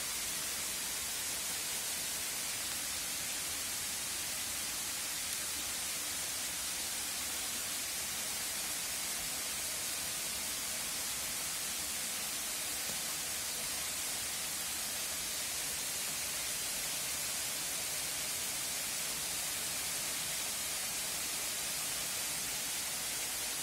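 A steady, even hiss that is strongest in the high range and holds at one level throughout, with no distinct clicks, calls or other events.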